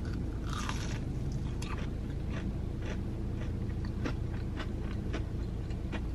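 A person biting into a thickly breaded fried shrimp with a crunch about half a second in, then chewing it, with small scattered crunches and clicks. A steady low hum sits underneath.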